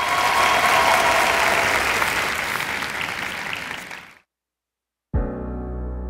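Studio audience applauding, fading out at about four seconds. After a second of silence, a sustained electric piano chord comes in near the end.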